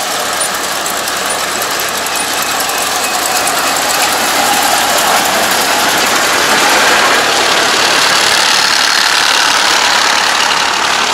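ANR460 rice combine harvester running, its engine and reaping and threshing machinery making a steady, loud noise as it cuts lodged, flattened rice.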